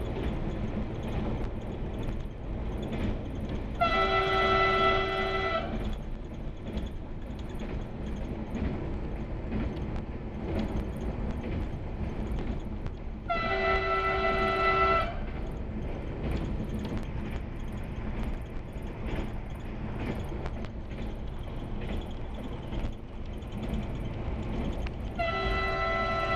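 Swedish Y2 diesel train's horn sounding three separate blasts, each about one and a half to two seconds long and several tones at once, about ten seconds apart, as warnings at level crossings. Between the blasts the train runs with a steady rumble.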